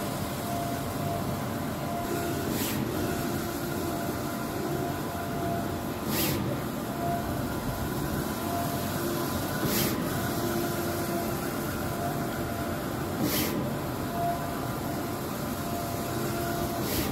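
A Jade eco-solvent large-format printer with four Epson i3200 print heads running a print job. A steady mechanical hum comes from its drives and fans, and a short hiss recurs about every three and a half seconds as the print-head carriage sweeps past, over a faint whine that cuts in and out.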